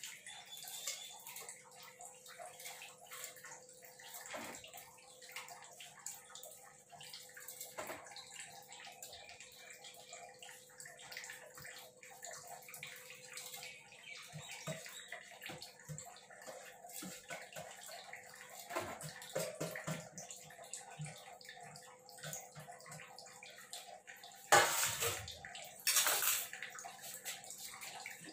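Lit gas stove burner hissing under a pot of heated water while washed lentils are tipped in from a plate, with small taps and splashes. Two louder clattering sounds near the end.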